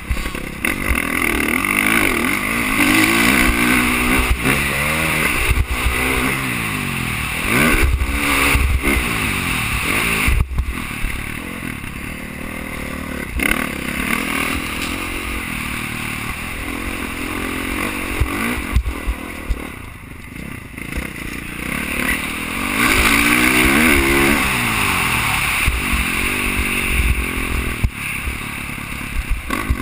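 Dirt bike engine heard from the rider's helmet camera, revving up and dropping back again and again as the throttle opens and closes through a motocross lap, with wind and track noise underneath. The engine falls away briefly about twenty seconds in before picking up again.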